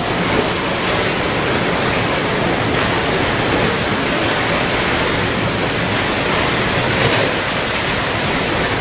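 Tsunami flood surge pouring through a street: a steady, loud rush of water carrying wreckage.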